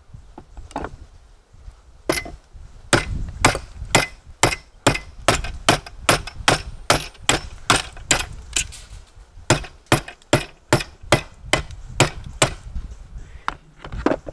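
Repeated hammer blows, some two dozen in a steady run of about two or three a second, breaking open an electronic component salvaged from a circuit board to get at the copper inside.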